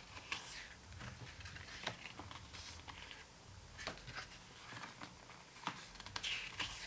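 Pages of an album photobook being turned and handled: a few soft paper swishes among scattered light clicks and taps.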